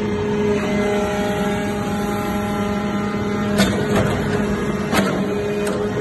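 Hydraulic metal-chip briquetting press running: a steady machine hum, with a higher even whine for about three seconds that stops with a sharp clank, then two more sharp knocks in the second half.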